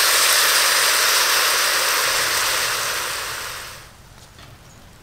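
Jaggery water poured through a strainer into a wok of jujubes in hot mustard oil, sizzling loudly as it hits the oil. The sizzle fades away about four seconds in as the syrup cools the oil.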